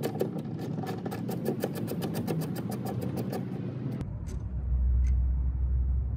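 Ratchet socket wrench on a 10 mm mounting bolt of the side mirror, clicking rapidly as it is worked back and forth, then stopping abruptly about four seconds in. After that a steady low rumble takes over and is the loudest sound.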